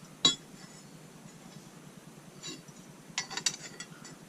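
Small hard parts of a motorcycle linkage guard kit clinking and clicking as they are handled and fitted together: one sharp knock just after the start, then a quick run of clinks about three seconds in.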